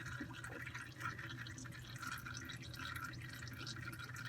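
Engine oil trickling and dripping from the oil filter mount into a drain pan, as a steady, irregular patter.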